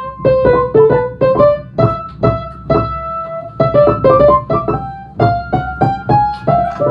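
Piano being played: a simple melody of separate struck notes, about two to three a second, over a lower accompaniment, climbing higher in the second half.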